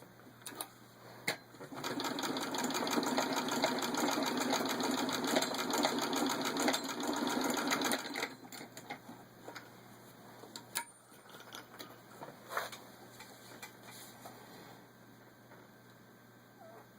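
1920 Singer 66-1 sewing machine, turned by a hand crank, stitching through six layers of denim. It gives a fast, even clatter that starts about two seconds in and stops about eight seconds in. A few separate clicks come before and after it.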